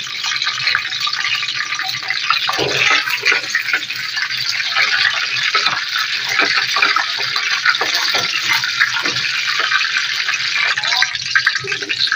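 Curry leaves, fenugreek seeds and mustard seeds sizzling and crackling in hot oil in a kadai: the tempering (tadka) frying. A spoon stirs through the oil.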